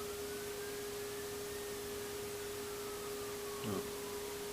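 A steady electronic tone held at one pitch, with a short faint sound about three and a half seconds in.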